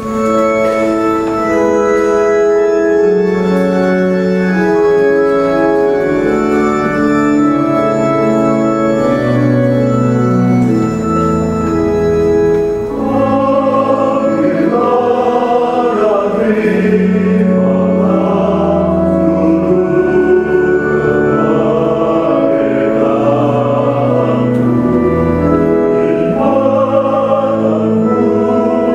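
Organ playing a slow introduction in held chords, then a choir comes in singing with the organ accompaniment about thirteen seconds in.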